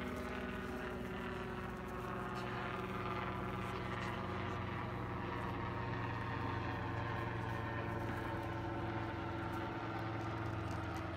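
A steady, even motor drone with a low hum, like an engine running.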